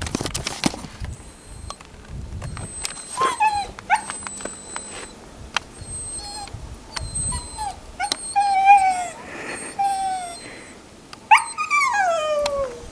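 A dog whining in a run of short, high whimpers that fall in pitch, ending in one longer drawn-out whine.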